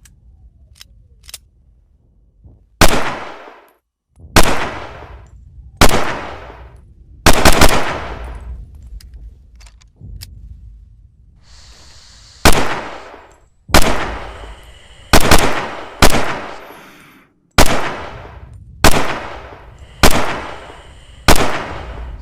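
Tokarev TT-33 pistol, 7.62×25mm, firing about a dozen shots, mostly a second or so apart with a quick string of two or three around the middle, each shot trailing off over about a second. A few faint clicks come before the first shot.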